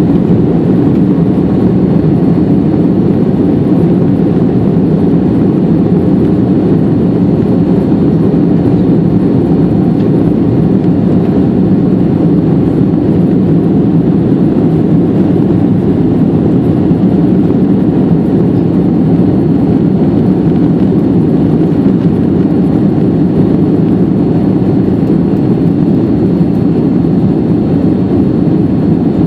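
Steady, loud cabin roar inside an Airbus A330-300 climbing out after takeoff: its Rolls-Royce Trent 700 turbofans under power, with airflow over the fuselage, heard from a seat beside the wing.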